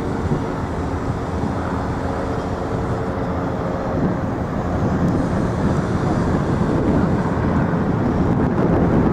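Steady city din of traffic and engines with a low machine hum, slowly growing louder.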